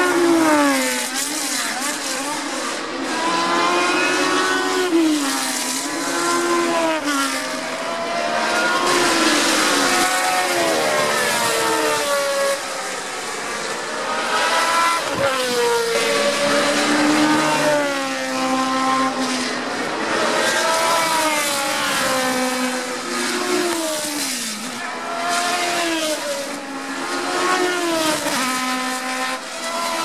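Several historic 1970s Formula 1 cars with Cosworth DFV V8 engines racing past at full throttle. The engine pitch rises and falls again and again as the cars accelerate, downshift and pass, and one car's sound overlaps the next.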